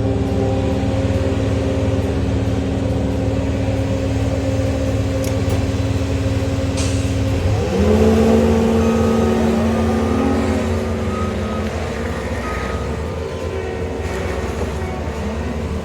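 Diesel compact track loader running under work, its engine and hydraulics making a steady pitched drone. About halfway through the note shifts and grows louder, as the machine takes on load, then eases off again.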